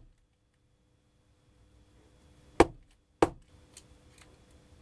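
Two sharp knocks about half a second apart, then a fainter tick: a screwdriver and a plastic RC differential housing being handled and knocked on the workbench.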